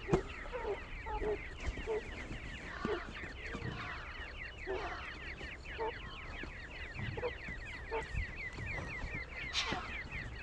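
Francolin chicks peeping without a break in rapid, short, high chirps that fall in pitch, several a second, with lower clucking calls now and then. A sharp click comes right at the start.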